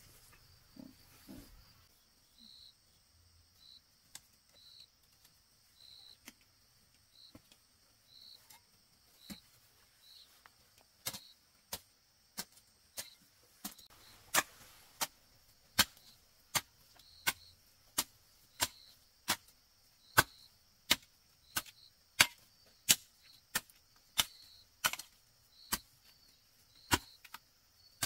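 A blade chopping into bamboo: sharp strikes, sparse and light at first, then steady and hard about three every two seconds from partway through. Insects keep up a steady high buzz with soft repeated chirps behind it.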